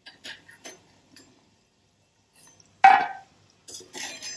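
Perforated steel ladle knocking and scraping against a stainless-steel kadhai while lifting fried methi kadbole out of the oil: a few light clinks, one loud clank about three seconds in, then a short run of clinks near the end.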